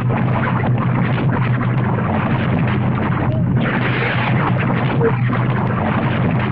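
Recorded sound of an erupting volcano spewing lava: a loud, continuous rumbling roar.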